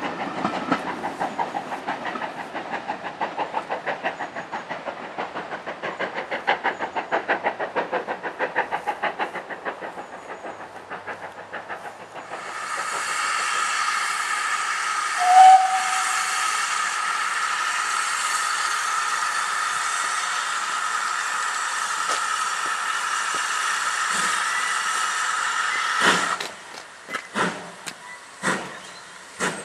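A train clattering past with a fast, even beat. Then a steam locomotive of the pannier tank type stands hissing steam steadily, with a short loud toot about three seconds into the hiss. Near the end the hiss stops and the engine gets under way with slow, separate exhaust chuffs, about one a second.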